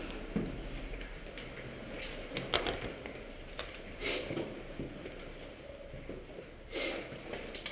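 Footsteps scuffing on gritty concrete stairs with rustling of clothing and gear, a few irregular scrapes and knocks over a steady background hiss.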